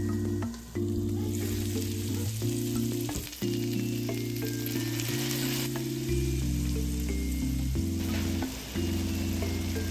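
Meatballs sizzling in a frying pan as sake, soy sauce and mirin are spooned in. The sizzle picks up about a second in and is loudest around the middle, over soft background music.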